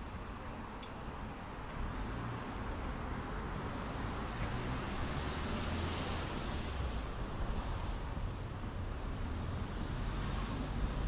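Road noise inside a moving car's cabin: the engine and tyres at low town speed, a steady low rumble that slowly grows a little louder.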